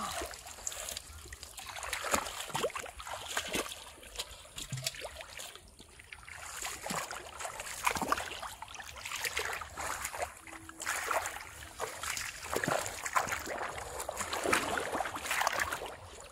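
Shallow muddy pond water splashing, sloshing and trickling irregularly as hands grope and dig through the mud under the water.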